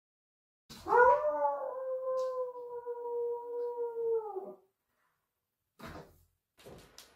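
A person imitating a wolf, giving one long howl that starts about a second in, rises quickly, holds a steady pitch and drops away as it ends. A couple of short noises follow near the end.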